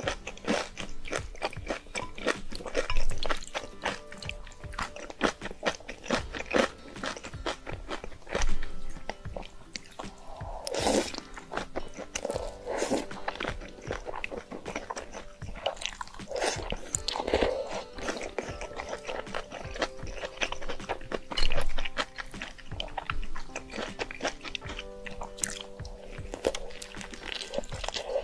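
A person eating, with crunching bites and chewing throughout, over background music with steady held notes.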